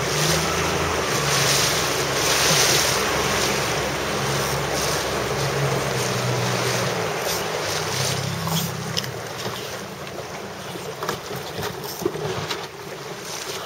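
Wind buffeting the microphone and water rushing and slapping past a boat's hull, loudest in the first few seconds, with a low steady motor hum underneath. Short splashes or knocks come now and then in the second half.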